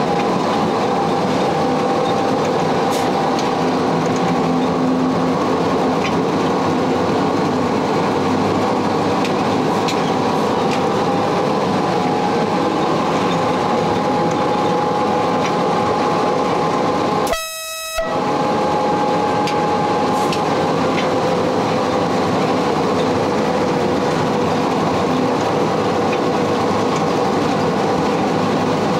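Sécheron T9 electric locomotive running, heard from its cab: a steady rumble of wheels on the rails with a steady hum of motor tones. About seventeen seconds in, the running noise drops out for under a second and a short single tone is left.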